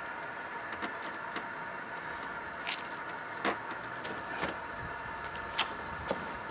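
A steady machine hum, with a handful of sharp knocks and taps from a person shifting and stepping on a hot tub's edge, the loudest a little before the middle and about two-thirds of the way through.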